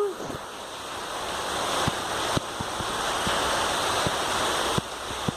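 Heavy rain pouring and water rushing, a dense steady hiss that builds over the first couple of seconds and eases a little near the end, with scattered light taps. A brief pitched sound sits right at the start.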